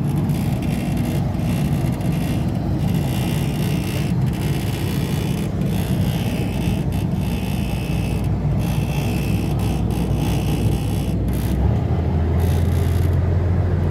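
Steady low mechanical rumble of engines running, with a deeper, steady engine hum coming in near the end.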